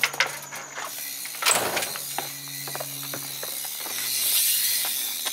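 BMX bike's rear hub ratcheting as the bike is wheeled along: a run of quick, uneven clicks with a louder clack about one and a half seconds in.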